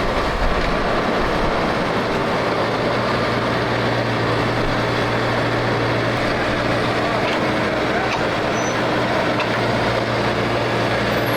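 Large diesel engine of heavy machinery running at a steady speed, a constant low hum under a wide noisy rumble that does not change.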